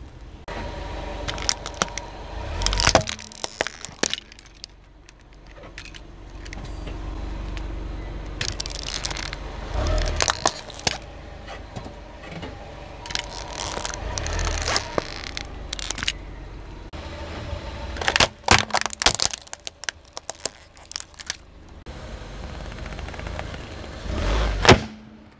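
A car tyre rolls slowly over objects on asphalt, crushing them in a run of crunches, cracks and plastic snaps: a plastic tub of food, a die-cast toy car, then a football squashed flat. The loudest bang comes near the end, with the car's low rumble underneath throughout.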